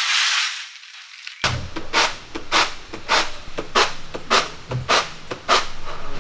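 Peeled peanuts rustling against a woven bamboo winnowing basket: first a soft rustle as a hand stirs them, then from about a second and a half in a steady rhythm of sharp swishing rattles, about one every half second, as the basket is tossed to shake out the loose skins.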